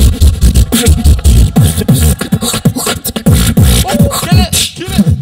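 Live solo beatboxing through a PA: a fast beat of deep kick-drum booms that drop in pitch, cut with sharp snare and hi-hat clicks, with a few gliding vocal sounds about four seconds in.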